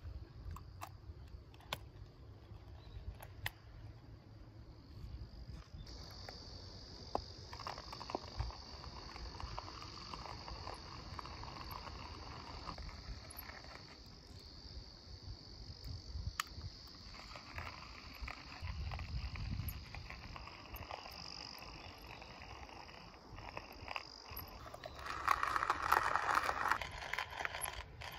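Insects buzzing steadily in one high, unbroken note, faint at first and much louder from about six seconds in, over a low, uneven wind rumble on the microphone. Near the end, a louder spell of clattering handling noise from the hand coffee grinder being put together.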